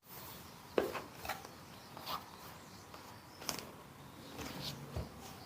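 Smartphone box and packaging being handled: scattered light clicks, taps and brief rustles at irregular intervals, the sharpest just under a second in.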